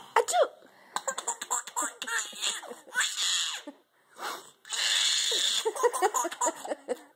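Baby giggling and laughing in short bursts of high, wavering voice. A breathy hiss of about a second comes roughly five seconds in.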